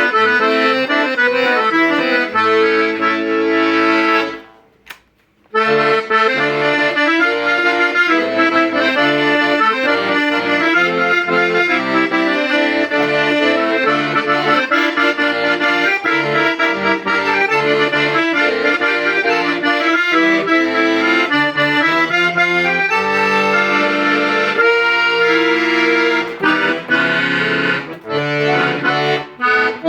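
Hohner Concerto III T accordion being played: a tune in sustained chords over a moving bass line. The playing stops for about a second about four seconds in, then resumes.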